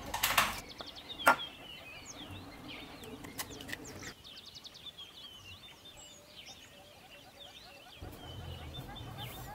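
A sharp tap of an egg on the rim of a ceramic bowl about a second in, then the shell pulled apart as the egg drops in. Small birds chirp busily in the background throughout.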